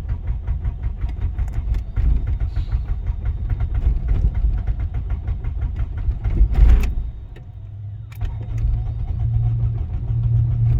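Honda Civic engine cranking over on the starter in a fast, even rhythm without catching, briefly stopping about seven seconds in and then cranking again: a crank-but-no-start condition.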